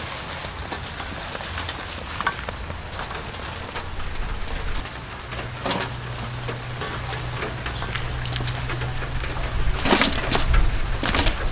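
Hands mixing raw chicken gizzards with leafy herbs and peppercorn sprigs in a steel bowl, then dropping leaves and the mixture onto aluminium foil: a crackly rustle of leaves with crinkling foil, louder near the end. A low steady hum comes in about halfway.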